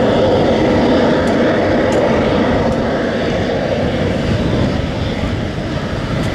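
Aircraft engine noise, loud and steady, easing off slightly after a few seconds.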